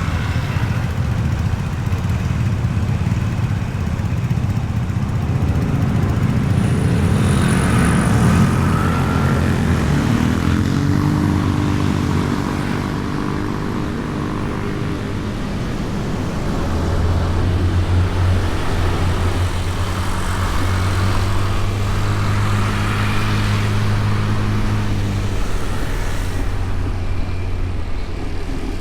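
Honda Beat scooter's single-cylinder engine running while riding in traffic, heard from a camera mounted on the scooter, with wind rumble on the microphone. The engine note shifts pitch around the middle, then holds fairly steady at cruising speed.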